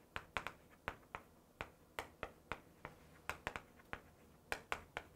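Chalk clicking and tapping on a chalkboard as a sentence is handwritten: faint, irregular sharp taps, about three or four a second, as each letter is struck.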